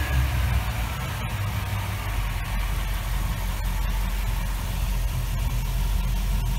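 Mercury MerCruiser 6.2-liter V8 inboard marine engine idling steadily just after being started.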